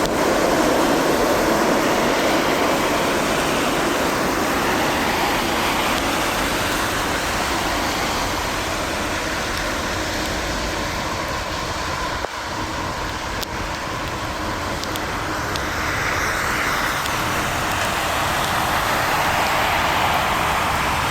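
Heavy typhoon downpour: a steady, dense rush of pouring rain.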